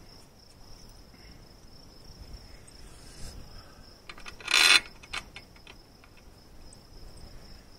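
Hex key turning out a steel bolt from a motorcycle's passenger-peg bracket: light metal clicks, a short metallic rattle about four and a half seconds in, then a few more small clicks. A steady high insect trill runs underneath.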